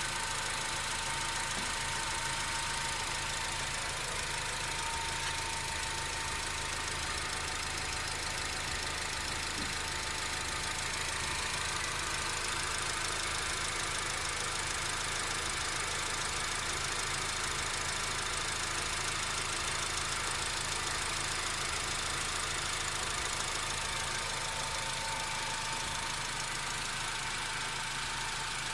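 Honda K24A3 2.4-litre four-cylinder engine idling steadily while its cooling system is burped of air after a coolant flush. A thin, steady whine sits over the low engine hum.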